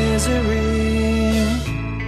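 Background music: a singer holds a wavering note over the band, and about one and a half seconds in the music drops to a quieter guitar passage.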